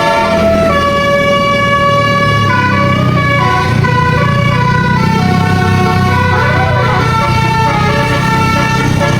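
A bus's Basuri telolet multi-tone horn playing a slow tune of held notes that step up and down in pitch, over a steady low rumble.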